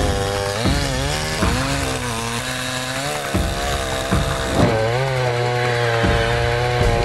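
Sadko GCS-510E chainsaw's two-stroke engine running under load while cutting wood, its pitch dipping and recovering several times as the chain bites in.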